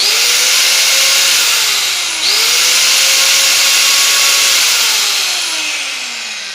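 Makita M9511 850-watt angle grinder, its armature bearing just replaced, running at full speed on a test run. It is switched off and straight back on about two seconds in. Near the end it is released and spins down with a falling whine.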